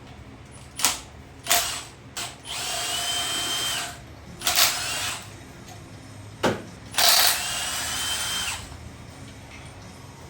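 Cordless power tool run in two bursts of about a second and a half each, with short blips and clicks between, spinning out the motor mount bolts on a Subaru EJ25 engine.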